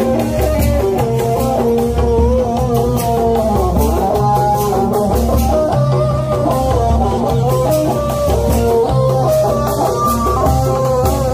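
Loud music with a plucked guitar melody over bass and drums, played through a street sound system's horn loudspeakers for dancing in a procession.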